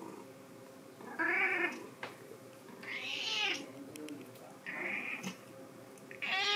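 Long-haired white cat meowing four times, short calls about a second and a half apart, the first and last the loudest.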